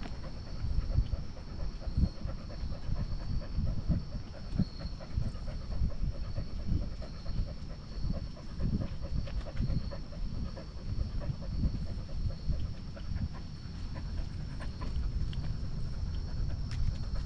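Husky panting continuously while on the move, heard close up from a camera carried on the dog, with a steady stream of thumps and rustles from its movement.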